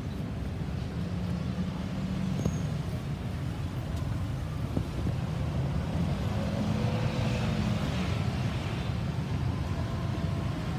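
Road traffic: vehicle engines running with a steady low rumble and tyre noise.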